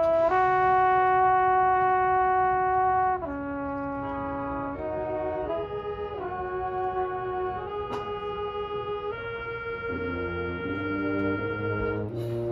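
Marching band brass playing: a loud held chord for about three seconds, then softer, slower-moving lines that step from note to note, with lower brass coming in near the end.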